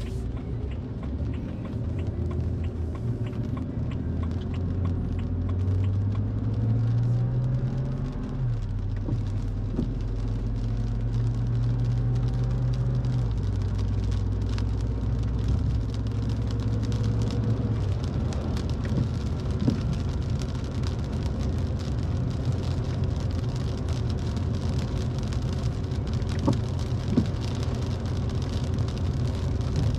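Inside a car driving on a wet road in rain: low engine hum and tyre and rain hiss. The engine note steps up and down during the first half, then settles into a steady drone, with a few sharp ticks near the end.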